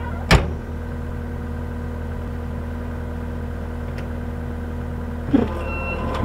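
Skid steer engine running steadily at low speed. A sharp metallic clank about a third of a second in is the loudest sound, with a smaller knock and a few short high beeps near the end.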